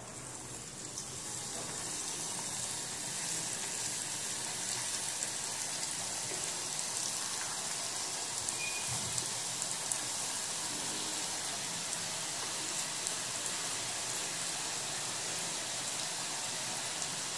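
Urad dal imarti batter sizzling in hot oil in a kadhai as it is piped in. The sizzle swells over the first couple of seconds, then runs steadily with small crackles.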